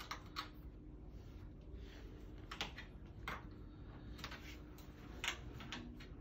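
Faint, irregular light clicks, several over a few seconds, from a hex key working the height-adjustment screw of a sliding closet door's bottom wheel.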